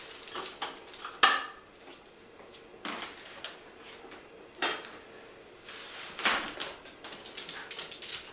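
Hands working at a spot welder's sheet-metal case and its top knob: a series of sharp clicks and knocks, the loudest about a second in, with a scraping rustle a little after six seconds and small ticks near the end.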